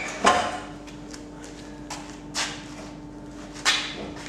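Sharp metal clanks and knocks from hand tools and exhaust parts being worked loose under a car, a handful of separate strikes with the loudest just after the start and again over halfway through, over a steady low hum.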